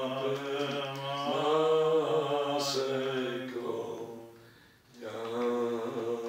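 A man singing a Jewish liturgical prayer melody unaccompanied, holding long drawn-out notes; he breaks off briefly about four seconds in, then takes up the melody again.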